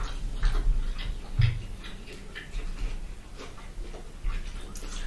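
Close-miked chewing and crunching of crispy fried chicken and fries, a run of irregular crisp clicks. A single dull thump about a second and a half in.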